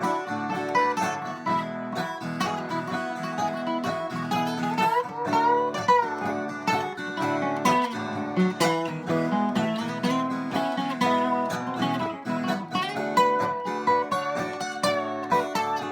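Acoustic guitar playing an instrumental break, with picked melody notes over strummed chords and no singing.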